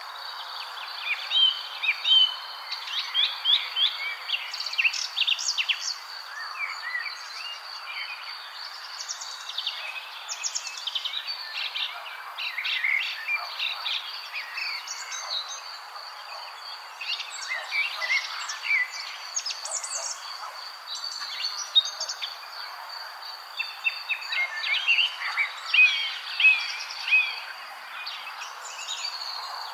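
Birds chirping and singing over a steady, high-pitched insect trill, like a nature ambience track.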